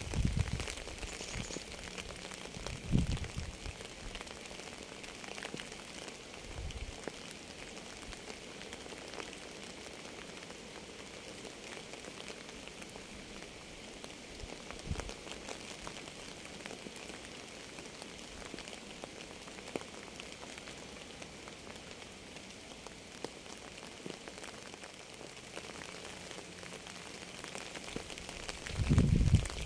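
Steady rain falling, with many small sharp drop ticks. A few short deep thuds break through, the loudest about three seconds in and again near the end.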